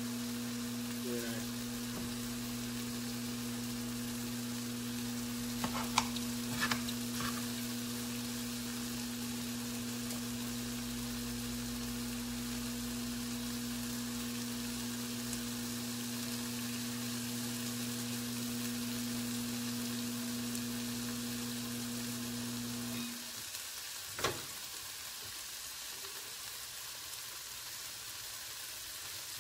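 Chicken sizzling steadily in a frying pan, with a few light utensil clicks against the pan. A steady electric hum runs beneath it and cuts off about three-quarters of the way through, followed shortly by a single click.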